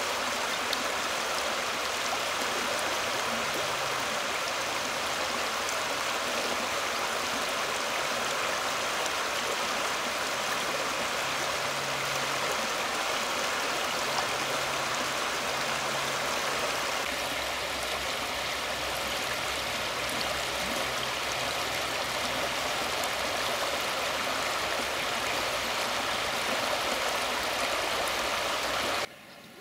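Shallow river running over rocks and gravel: a steady rush of water that cuts off suddenly near the end.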